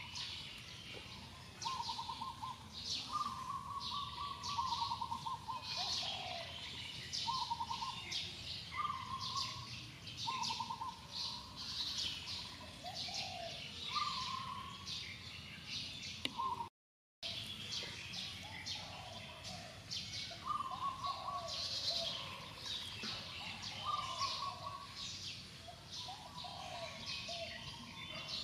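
A chorus of forest birds calling: short repeated trilled phrases, downward-sliding notes and many high chirps overlapping. The sound cuts out completely for a moment a little past halfway.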